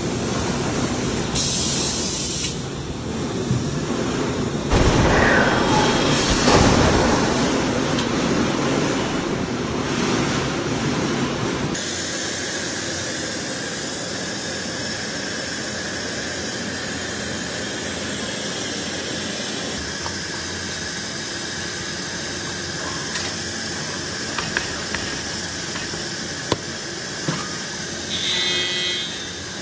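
Tire-retreading machinery and air tools: noisy, uneven running that changes sharply about twelve seconds in to a steady hiss, with a short buzz near the end.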